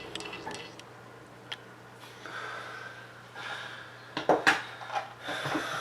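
Metal parts of a Stoeger M3000 shotgun's bolt assembly being handled: faint rubbing and light clicks, then a few sharp metallic clicks about four seconds in.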